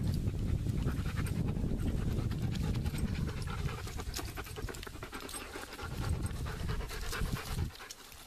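A dog panting rapidly close to the microphone, growing fainter near the end.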